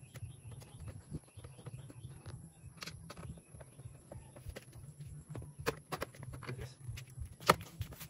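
Screwdriver working the screws of a window air conditioner's sheet-metal casing: scattered light clicks and taps, with one sharper knock near the end, over a low steady rumble.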